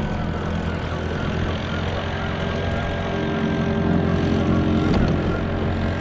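Boat's outboard motor running steadily at low speed, a little louder for a moment about four to five seconds in.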